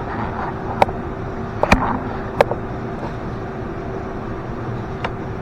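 Four sharp clicks of tools and parts being handled during work on the car: one about a second in, two close together a little later, and one near the end. Under them runs a steady background hum with a faint constant tone.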